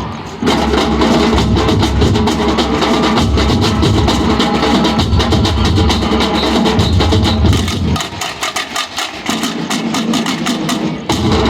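Batucada samba drum ensemble playing a fast, driving rhythm. The deep bass drums drop out for about a second near the end while the higher drums keep playing, then come back in.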